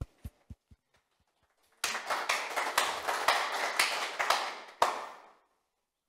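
A few scattered claps, then a small audience applauding for about three and a half seconds, dying away near the end.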